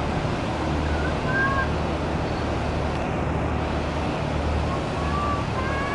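Catamaran fast ferry with MJP waterjets manoeuvring at low speed: a steady rush of engine and waterjet noise with a low hum that swells and fades. A few faint high calls sound over it, about a second in and near the end.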